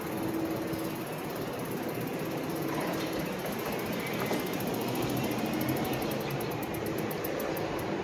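Steady wind noise and tyre roll from an e-bike riding over a concrete walkway, with a faint hum that comes and goes.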